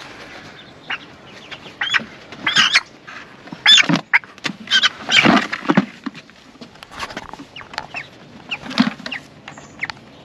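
Chickens clucking and squawking in short, irregular calls.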